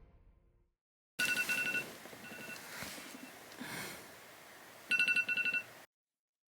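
Electronic alarm beeping in quick runs of short, high, same-pitched beeps: one run about a second in and another near the end, then it cuts off.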